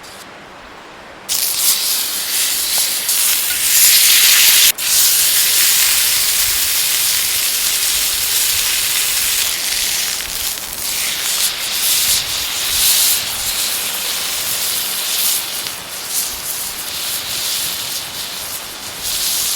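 Steak sizzling on a hot iron griddle, a loud steady hiss that starts suddenly about a second in.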